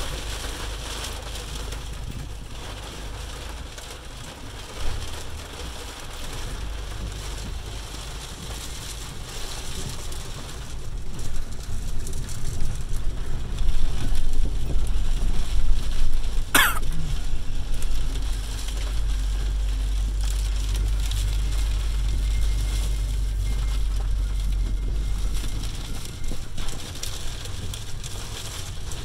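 Cabin noise of a car driving slowly through a rainstorm: a steady low rumble of engine and tyres under the hiss of rain on the glass. The rumble gets louder about a third of the way in and eases near the end, with a single knock about five seconds in and one brief sharp squeak past the middle.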